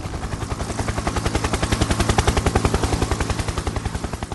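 Small helicopter's rotor chopping in a rapid, even beat of about ten pulses a second, growing louder to a peak about two seconds in, then fading.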